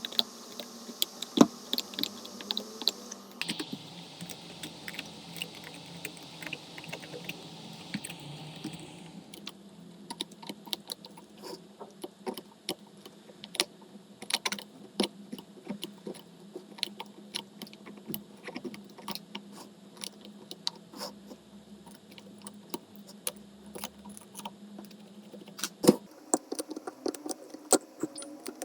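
Irregular small clicks and taps of hand tools working on an iPhone 11 Pro Max's back glass and frame, over a low steady hum. A steady hiss runs for the first nine seconds or so, then stops.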